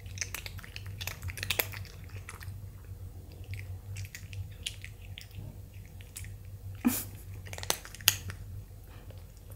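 Cats eating treats out of a hand at close range: wet chewing with quick mouth clicks throughout, and a few sharper clicks about seven to eight seconds in.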